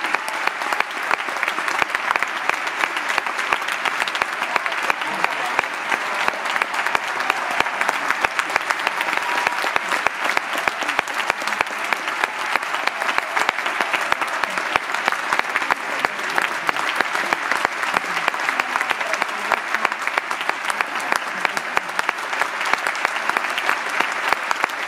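Theatre audience applauding steadily, a dense, unbroken wash of many hands clapping, with some voices mixed in.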